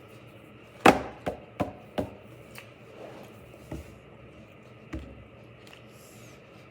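About seven sharp taps and knocks of hard objects on a tabletop, irregularly spaced. The loudest comes about a second in, three more follow close after it, and fainter ones come later.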